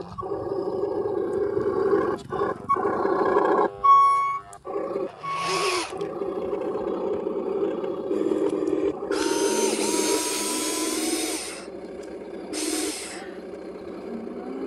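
Toy RC articulated dump truck's electric drive whining steadily, with short electronic reversing beeps about four to five seconds in. A hiss lasting about two seconds follows past the middle.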